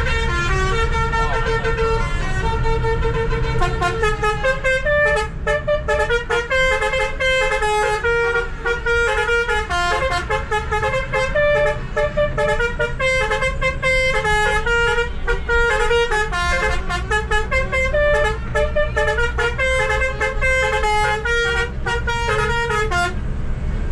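Basuri telolet musical bus horn playing a long multi-note tune over the bus's steady engine hum. The notes are slower for the first few seconds, then run fast and dense, and the horn stops shortly before the end.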